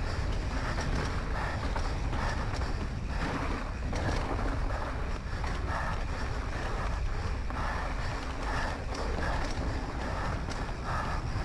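A rider's heavy breathing, in gasps about once a second, over a steady low wind rumble on the microphone while riding down the trail.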